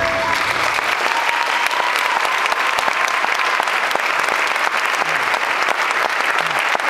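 Audience clapping at the end of a dance number. The music's last held note fades out in the first second or two, and a few voices call out near the end.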